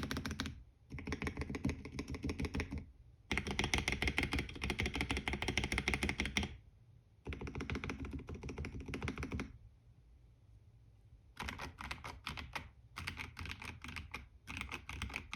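Typing on a KBD67 Lite mechanical keyboard with lubed Joininkeys Matcha switches, Drop MT3 Camillo keycaps and a silicone-poured case. Fast typing comes in runs of a few seconds broken by short pauses, with a longer pause of about two seconds near the ten-second mark before the typing starts again.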